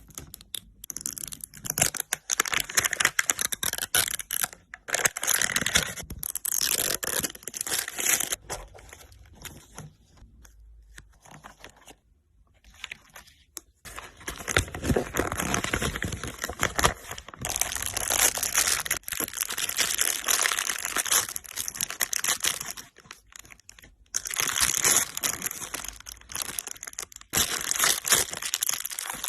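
Fidget toys being handled and squeezed up close, making dense crackling and rustling noise in bursts of a few seconds, with short pauses between them and a quieter stretch near the middle.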